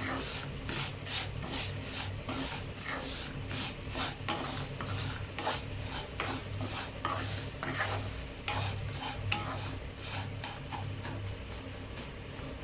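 A spatula stirring roasted vermicelli and ground nuts in a pan: repeated dry scraping strokes, about two to three a second, over a steady low hum.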